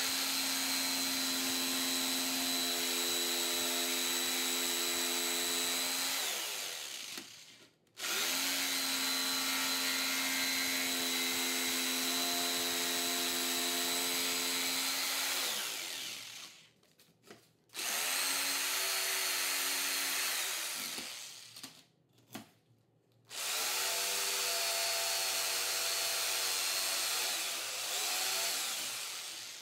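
Corded jigsaw cutting slots in laminated 3/4-inch plywood, run in four bursts of several seconds each at a steady speed. Each time it is switched off, the motor winds down before a short pause.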